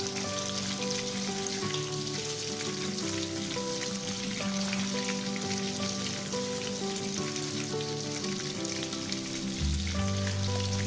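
Oil sizzling steadily around pieces of fish frying in a steel wok, with background music playing over it; a low bass line comes in near the end.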